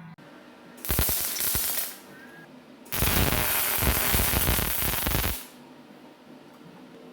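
Welding arc crackling in two bursts, a short one of about a second and then a longer one of about two and a half seconds, as a small steel part is welded.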